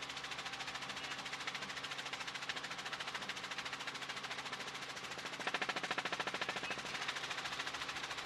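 Helicopter rotor chopping rapidly and evenly, with a steady engine hum underneath; the chop gets louder for a second or so just past the middle.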